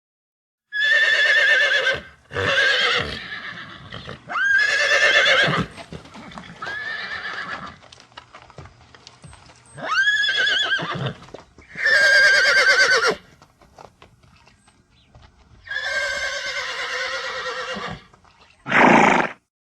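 Horse whinnying again and again: about eight separate neighs, each a second or two long with a quavering pitch, the last one short and sharp near the end.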